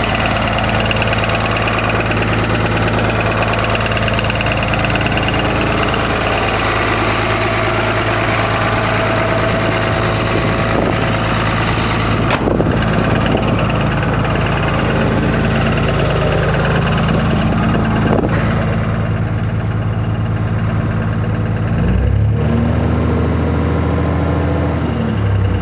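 Cummins diesel engine idling with a rapid knock, which the owner takes for a rod knock. About 22 seconds in it is revved briefly, held a few seconds, then drops back to idle.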